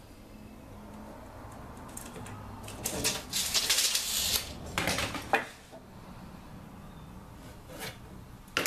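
A tape measure and a 2x4 being handled on a workbench: a scraping rustle about three seconds in, a few sharp clicks a little later, and another sharp click near the end.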